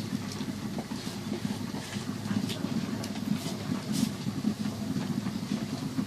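Pot of rice and minced chicken porridge boiling on the stove: a steady low rumble with scattered small bubbling pops and ticks.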